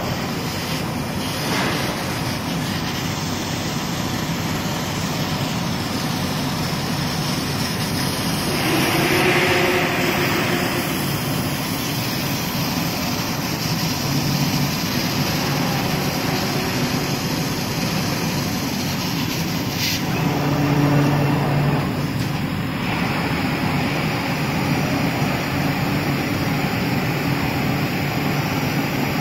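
JQ1830 CO2 laser fabric-cutting machine running with its exhaust fan: a steady rushing noise, with brief humming tones about 9 and 21 seconds in.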